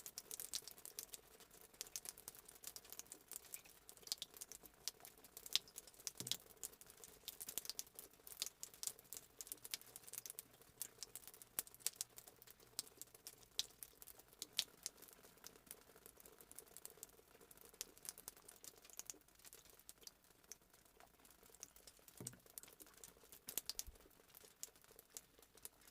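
Water dripping after rain: faint, irregular drops and taps falling at random, thicker in the first half and a little sparser later, with a couple of soft low thuds.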